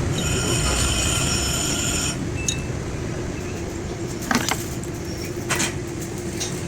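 Truck running with a steady hum; a high-pitched tone sounds for the first two seconds and stops, then two short sharp clicks follow.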